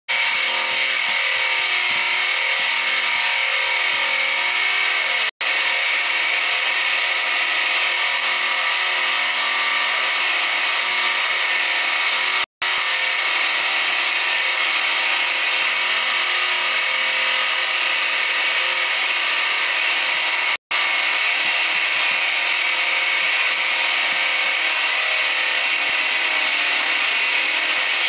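Compressed-air spray gun spraying finish: a steady loud hiss of air with a steady hum beneath it. The sound drops out abruptly three times for an instant.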